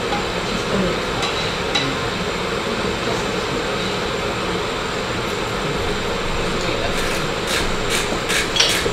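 Steady background hiss of a demonstration kitchen, with a few sharp clinks of metal utensils near the end.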